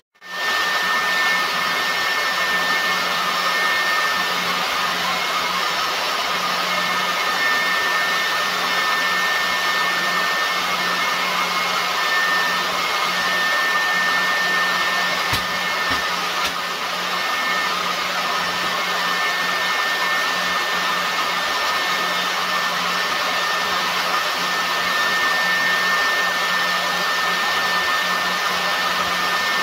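Oxy-fuel pattern-tracing cutting torch burning through Hardox wear plate: a steady rushing hiss of the cutting flame and oxygen jet, with a faint steady high whistle and a low hum underneath.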